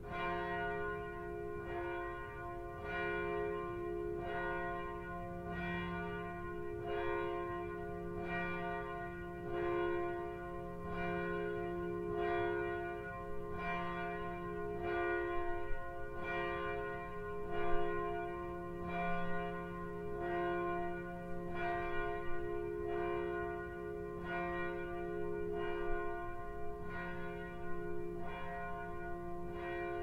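Church bells tolling, struck about once a second at several different pitches, each stroke ringing on into the next.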